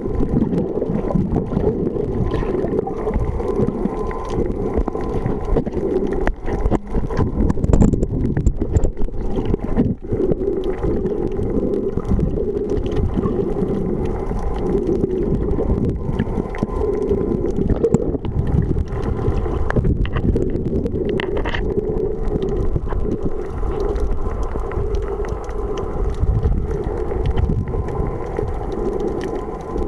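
Underwater water noise: a steady low rumble with gurgling and scattered small clicks as the camera moves through the water.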